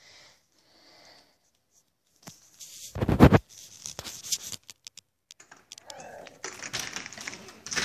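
A glass door with slatted blinds being opened: a loud thump about three seconds in, then a long run of rattling and clattering as the door and its blinds move.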